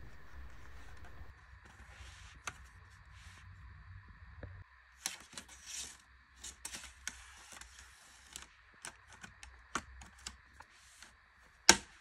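Plastic clips of a Lenovo IdeaPad 330-15ARR's bottom cover snapping loose one after another as a pry tool works along the seam, with short scraping between the clicks. The loudest snap comes near the end.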